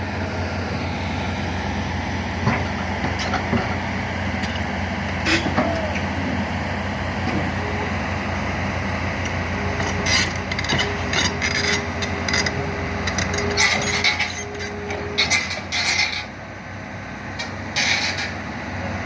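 Heavy diesel machinery running steadily, with a held whine in the middle and a run of sharp metal clanks and knocks in the second half.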